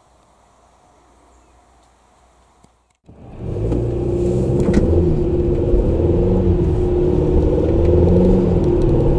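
Car driving, its engine and road noise heard from inside the cabin, coming in suddenly about three seconds in after a faint, quiet stretch.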